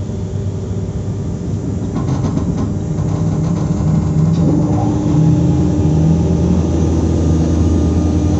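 Stationary SNCF Z 20500-class (Z2N) double-deck electric multiple unit humming with its onboard equipment running. It is a steady low hum with several held tones that grows louder over the first few seconds and then holds.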